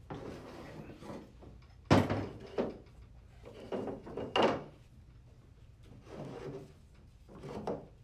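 Metal clunks and scrapes as a CVT transmission case and its differential are handled and set in place on a workbench: one sharp clunk about two seconds in, then several lighter knocks and scrapes.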